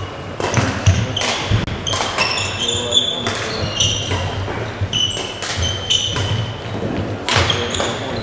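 Badminton doubles rally: rackets striking the shuttlecock again and again, with sneakers squeaking and feet thudding on the court floor.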